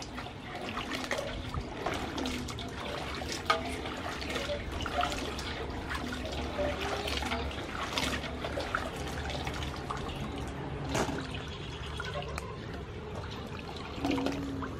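Hands swishing and rubbing cut sweet potato pieces in a metal basin of water, with irregular small splashes and sloshing: the pieces are being washed clean after their soak in salted water.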